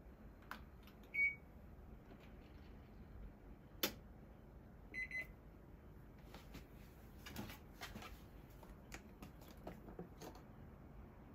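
Top-loading washing machine's control panel beeping as its buttons are pressed: one short beep about a second in and a quick double beep around five seconds, with a sharp click between them and a few faint clicks and taps afterwards.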